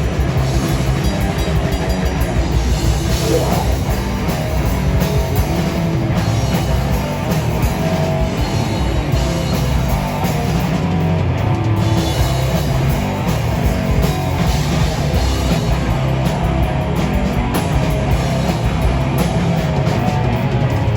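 A rock band playing live: guitar and drum kit going without a break at a steady, loud level.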